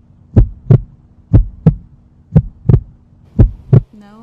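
Heartbeat sound effect: deep double thumps, lub-dub, about once a second, four beats in all.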